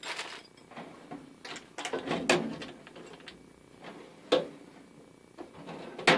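Steel toolbox drawers being slid and knocked shut, with plastic zip bags of hardware rustling as they are moved. Several sharp knocks, the loudest about two seconds in, just past four seconds, and at the very end.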